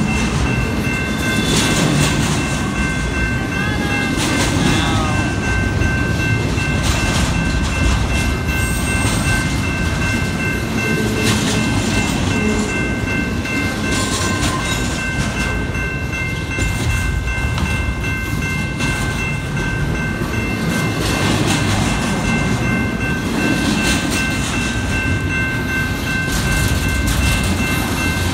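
BNSF double-stack intermodal freight train rolling steadily past at close range: a continuous low rumble with the clatter of wheels over rail joints and the crossing. A grade-crossing bell rings steadily over it.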